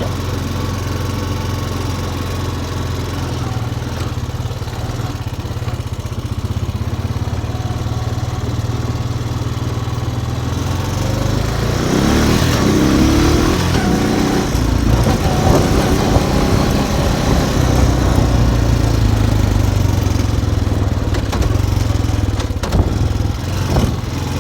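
Engine of a small off-road vehicle running as it is driven, a steady low hum that gets louder about halfway through, with a few knocks near the end.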